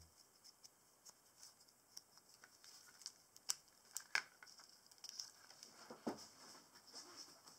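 Faint rustling and small crackling clicks of thin birch bark pieces being handled and pressed flat on paper, with a few sharper ticks about halfway through.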